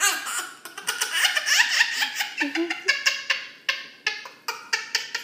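Toddler giggling and laughing, a rapid run of high-pitched squeals and titters.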